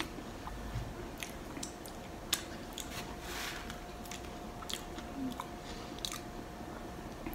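A person chewing a mouthful of loaded nachos close to the microphone: scattered soft crunches and wet mouth clicks, the sharpest a little over two seconds in.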